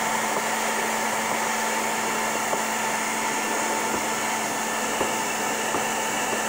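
Handheld electric hair dryer running steadily, a constant whine over the rush of blown air, aimed at a price sticker on a cardboard-and-plastic box to heat its adhesive. A few faint ticks of fingers on the box are heard through it.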